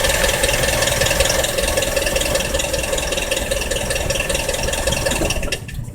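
Diesel car engine idling with a rattle that an oil change has not cured, then switched off shortly before the end, the running cutting out with a few clicks.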